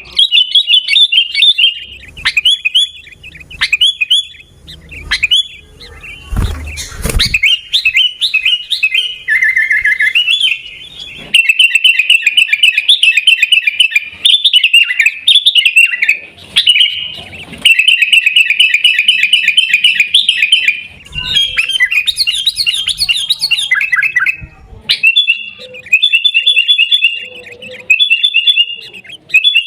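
Sooty-headed bulbul (kutilang) calling: loud, rapid runs of chirping notes in bursts with short gaps. A single dull thud about seven seconds in.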